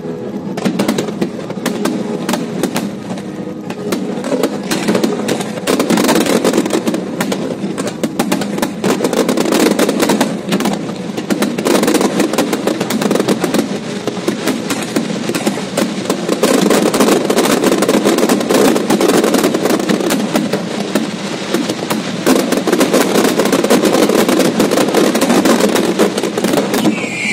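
Aerial fireworks display: a dense, unbroken run of crackling and bangs from many shells bursting at once. It grows louder and busier about six seconds in, and again past the middle.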